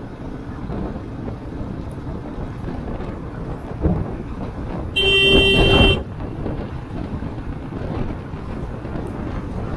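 Steady rumble of road and wind noise while riding through traffic, with a vehicle horn honking once, a single steady tone lasting about a second, around the middle.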